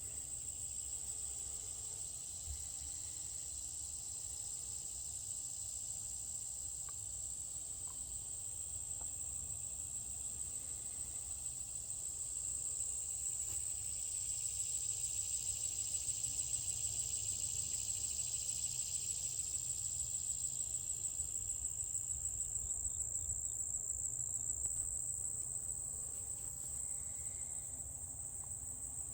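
Insects, crickets among them, trilling continuously at a high pitch. A second, lower-pitched insect trill swells in just before halfway and fades out about three-quarters through.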